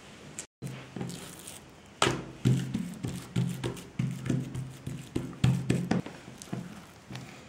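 Oiled hands patting and pressing bread dough flat on a wooden tabletop: a quick series of soft slaps and knocks, about three a second, starting about two seconds in.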